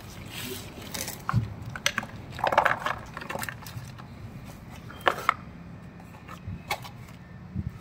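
Handling noise from a plough's hydraulic cylinder kit: a plastic parts bag crinkling, and metal fittings and the cylinder clicking and knocking against each other and the cardboard box, in scattered irregular bursts.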